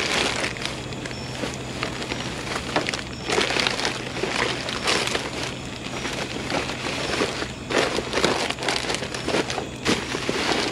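Plastic trash bags rustling and crinkling in irregular bursts as gloved hands dig through them and pull them open, over a steady low hum.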